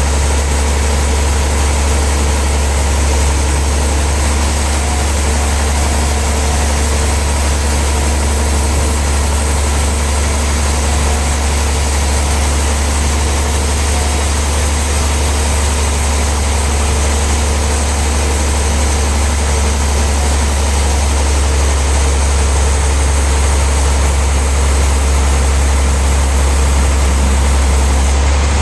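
Heavy sawmill machinery running steadily, a loud deep hum that holds one pitch without change.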